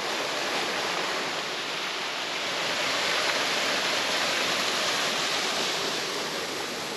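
Small waterfall pouring into a pool: a steady rush of falling, splashing water, swelling slightly in the middle.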